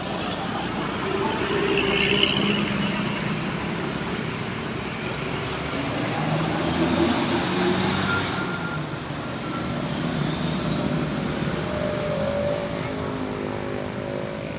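Roadside traffic: motor vehicles passing with engine and tyre noise, swelling louder about two seconds in and again around seven seconds.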